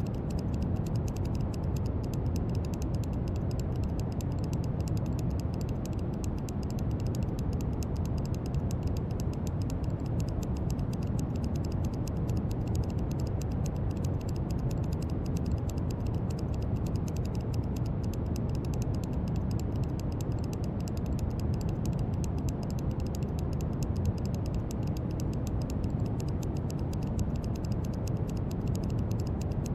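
Steady brown noise: an even, deep hiss weighted to the low end, with a faint fine crackle on top.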